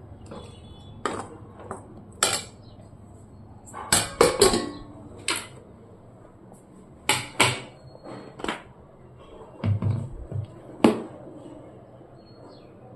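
Dishes and utensils being handled: about a dozen irregular clinks and knocks, with a quick cluster about four seconds in.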